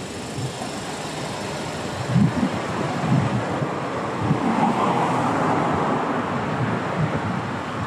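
Street traffic noise, swelling as a vehicle passes around the middle and easing off again.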